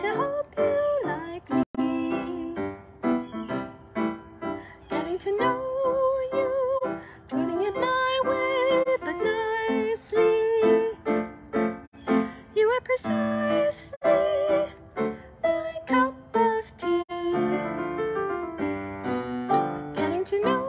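A woman singing a slow melody with instrumental accompaniment, her held notes wavering with vibrato.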